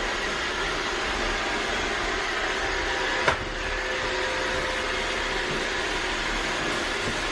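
Vacuum cleaner running with a steady whirring hiss, with a single sharp knock about three seconds in.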